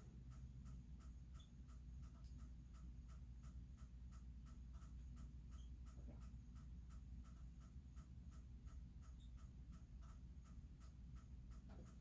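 Faint night-time animal call, a steady rhythmic pulsing about three times a second, over a low steady hum, with an odd single high chirp now and then.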